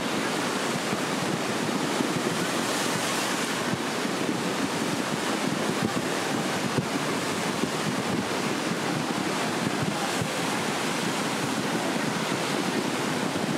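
Kali Gandaki River in flood, a fast muddy torrent rushing in a steady, unbroken noise of churning water.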